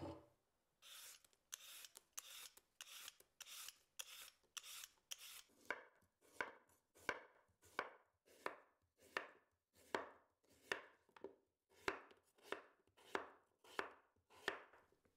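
Chef's knife slicing a raw peeled sweet potato into rounds on a wooden cutting board: a steady run of crisp cuts, each ending on the board, about one and a half cuts a second. The first few seconds hold lighter, hissier strokes.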